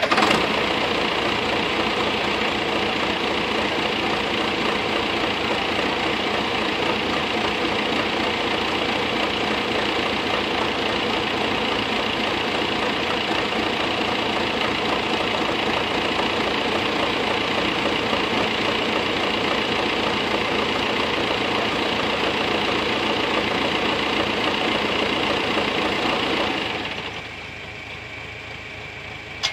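Tractor engine held at raised revs, running steadily and evenly, then dropping back to a low idle a few seconds before the end.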